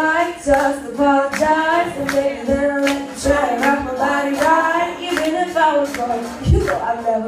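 A teenage girl singing a pop song live into a handheld microphone, with a steady, even beat behind her voice.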